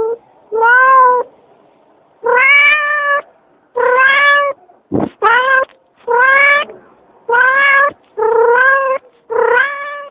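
A sleeping cat snoring with a squeaky, meow-like call on each breath, eight times in a steady rhythm about a second or so apart, each call rising slightly in pitch. A single sharp click comes about halfway through.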